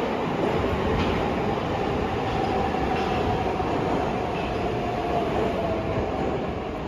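Subway train pulling into a station and running past along the platform: a steady rumble of wheels and running gear, with a faint whine that falls slightly in pitch as it slows.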